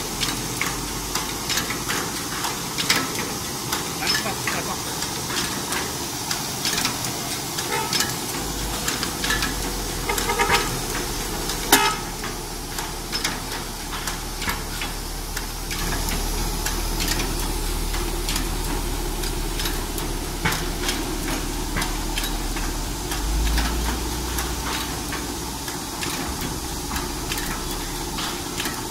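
Cellophane box-overwrapping machine running, a steady mechanical clatter of many quick clicks and clacks from its feeding and folding mechanism. A low hum joins about a third of the way in.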